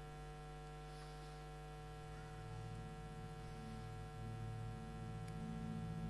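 Faint, steady electrical mains hum, unchanging throughout.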